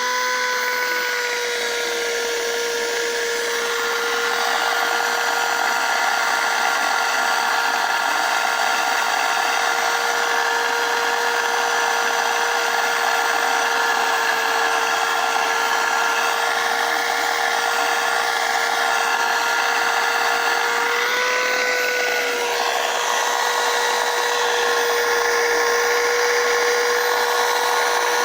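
Dirt Devil Vibe corded stick vacuum's motor running at a steady high whine with a rushing of air over it. The air rush grows louder about four seconds in, and the pitch briefly rises near the three-quarter mark before settling again.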